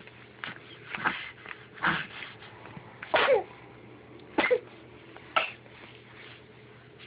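A series of about five short vocal noises, roughly a second apart. The two loudest glide down in pitch.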